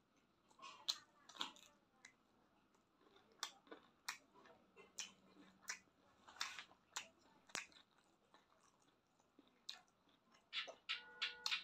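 Close-miked chewing and wet lip smacks of a person eating with the hands, sharp clicks at irregular intervals, with a quicker run of smacks near the end.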